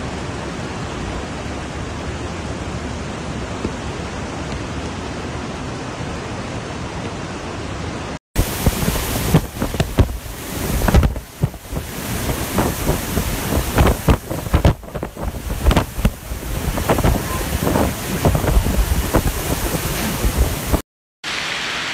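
Muddy floodwater rushing in a torrent, a steady roar at first. After a cut, a louder, uneven rush with sudden gusty surges of wind and rain noise over the water.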